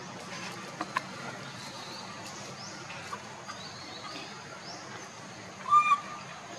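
Birds chirping with short rising notes, and near the end a brief, loud, high-pitched call in two quick bursts.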